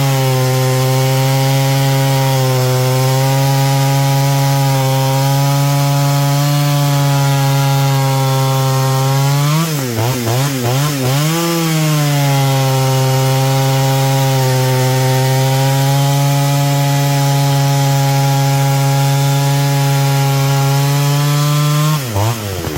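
Partner R16 55cc two-stroke chainsaw cutting wood under load, its engine pitch held steady in the cut. About ten seconds in it comes out of the cut and revs briefly, then goes back in for a second long cut. Near the end it comes out again and revs freely.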